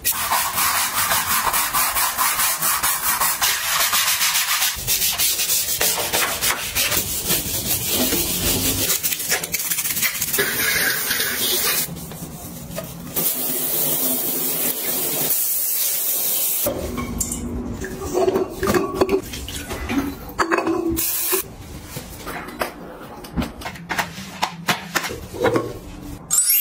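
Scrubbing and wiping on bathroom fixtures and surfaces: a long run of rhythmic rubbing strokes, then quieter, more broken rubbing with a few light knocks in the second half.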